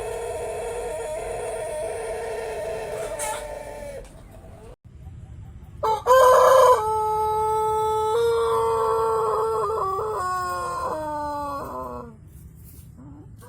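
White Pelung roosters crowing: one long, held crow ends about four seconds in, and after a short break a second long crow starts loud, holds, then steps down in pitch before ending about twelve seconds in.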